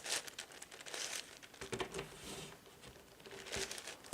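Layers of a large 11x11 Rubik's cube being turned by hand: short bursts of clicking and rasping plastic, a turn every half second to a second.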